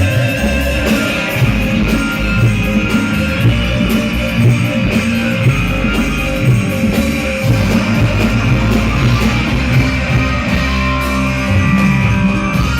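Loud music with a heavy bass, played through a large PA sound system that is being tested.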